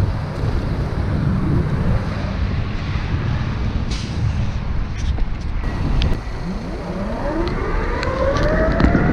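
Wind rushing over the microphone with the rumble of an electric longboard's pneumatic tyres rolling on pavement. About six seconds in, the Meepo Hurricane's belt-drive motors start a rising whine as the board speeds up.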